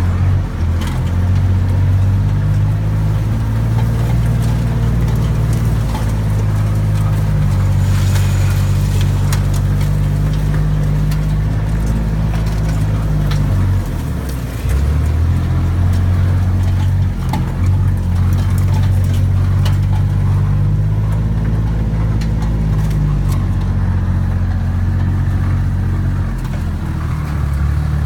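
Engine of a slow-moving vehicle running with a steady low drone. The engine note drops briefly about halfway through, then picks back up.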